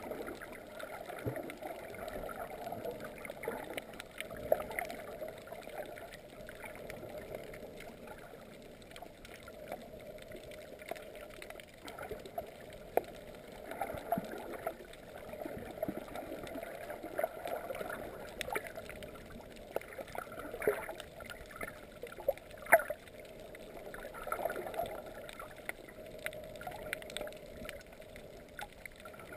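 Muffled underwater sound picked up by a submerged camera: water sloshing and gurgling with scattered sharp clicks.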